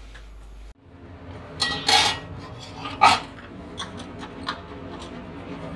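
Metal clinks against a stainless steel cooking pot: two sharp clinks about two and three seconds in, then a few lighter ticks, over a steady low hiss.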